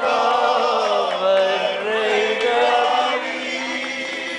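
A group of men singing together live in long held notes, with a guitar, growing a little softer after about three seconds.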